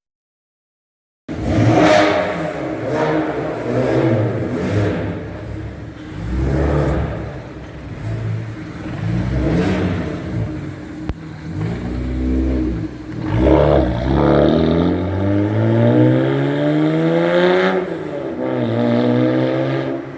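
BMW engine and exhaust revving in a series of throttle blips, with pops, bangs and crackles from the exhaust, which the owner puts down to an anti-lag tune. About two-thirds of the way in it pulls away in one long rising rev, then drops back to a steadier lower drone near the end. The engine sound starts after about a second of silence.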